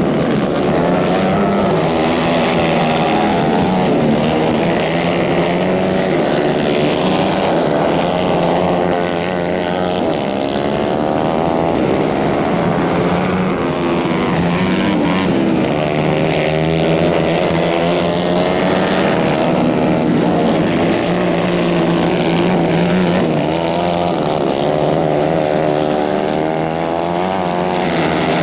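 Several 150 cc dirt-track kart engines racing together, their pitches overlapping and rising and falling continually as the karts accelerate and lift off through the corners.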